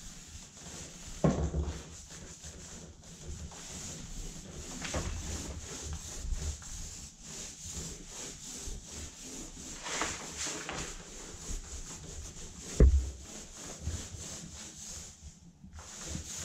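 Purdy 6.5-inch jumbo White Dove roller sleeve rolling gloss paint onto a door, a continuous scratchy rubbing. Two knocks break through, one about a second in and a louder one about three-quarters of the way through.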